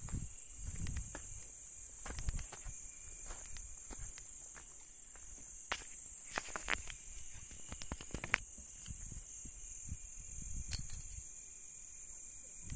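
Crickets or other night insects chirring in one steady high-pitched tone without a break, with scattered sharp clicks and knocks and low thumps of movement over rocky ground.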